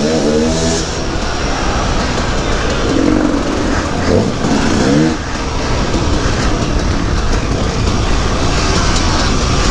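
Two-stroke KTM 250 EXC dirt bike engine revving up and down as it is ridden, over a heavy rush of wind and track noise. The pitch climbs right at the start and again twice around the middle.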